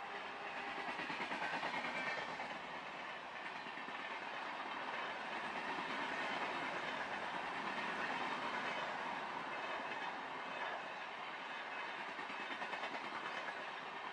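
A long passenger train running past on the track, a steady rush of wheel and rail noise with rhythmic clickety-clack as the coach bogies cross the rail joints.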